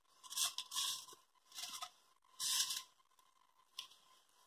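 Silicone spatula scraping under a fried egg on the ceramic-coated surface of a frying pan: four or five short scrapes in the first three seconds, then a light click near the end. The egg, fried without any oil, comes away without sticking.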